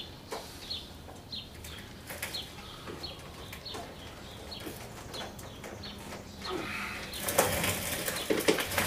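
A small bird chirping again and again, about one short falling chirp every two-thirds of a second, with a louder rustling noise over the last two seconds.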